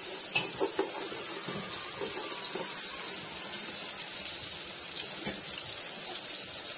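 Sliced onions sizzling steadily in hot oil in a pot as they fry lightly, with a few light knocks of a wooden spatula against the pot in the first second.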